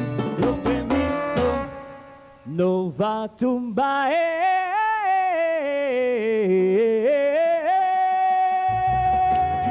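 Salsa band playing, then breaking off about two seconds in. A lone voice sings a wavering, ornamented line unaccompanied and ends on a long held note as the band, bass included, comes back in near the end.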